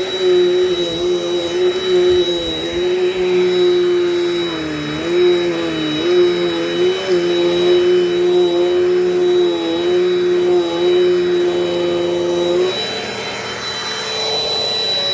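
Dirt Devil Dynamite vacuum cleaner running steadily with a droning whine. Its pitch sags briefly several times, and the sound changes slightly near the end.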